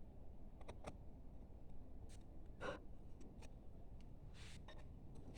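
Faint, scattered light ticks and a few short scrapes of a hand carving chisel working a small spot in wood.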